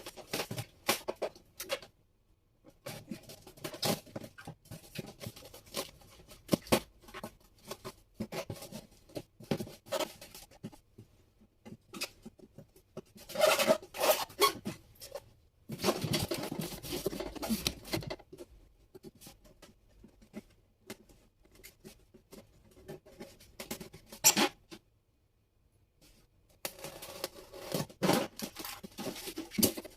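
Packaging being handled and opened during an unboxing: irregular rustling, scraping and clicks, with louder stretches of crinkling and scraping in the middle.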